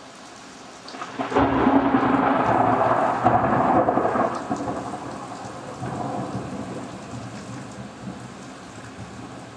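Heavy rain falling, with a clap of thunder breaking about a second in. The thunder rumbles loudly for about three seconds, then slowly dies away under the rain.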